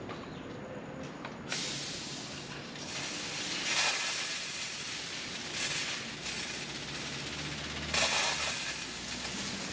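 Water hissing and sputtering out of a pressure washer's gun with the washer's engine not yet started, in uneven surges, as air is bled out of the hose and pump. The spray starts about a second and a half in, after a few faint clicks.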